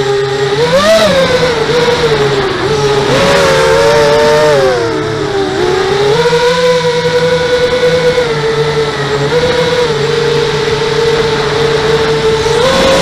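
A 5-inch quadcopter's brushless motors and propellers whine, several close pitches at once, rising and falling with throttle. The pitch jumps briefly about a second in, sags around five seconds, then holds fairly steady before rising again near the end.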